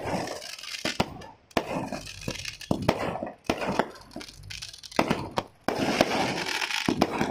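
Fireworks going off in quick succession: sharp cracks and bangs over a dense, constant crackle, with fresh loud volleys about one and a half seconds in and again near six seconds.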